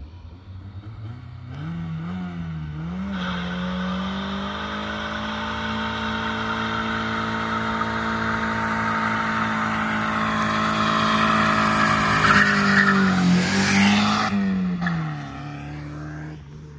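1993 Mazda Miata doing a burnout. The engine revs up and is held high for about ten seconds while the rear tyres spin and squeal, the squeal growing louder, then the revs fall back to idle near the end. Both rear tyres spin, leaving two lines, rather than a one-wheel peel.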